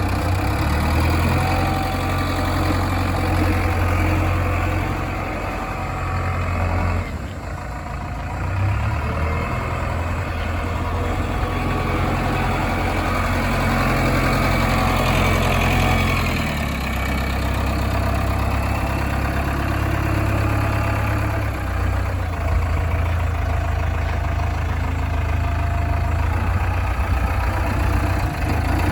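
Diesel engine of a JCB 3DX backhoe loader running steadily as it works. Its pitch and load shift twice, about seven seconds in and again around sixteen seconds.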